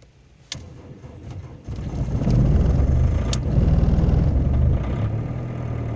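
BMW M47 two-litre four-cylinder diesel cold-starting at about −18 °C: a click, about a second of starter cranking, then the engine catches and runs steadily, a little quieter near the end.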